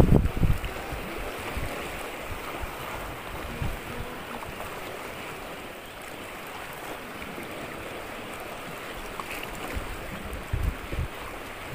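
Choppy sea water lapping and splashing in a steady wash. Wind buffets the microphone in the first half-second, and a few low thumps come near the end.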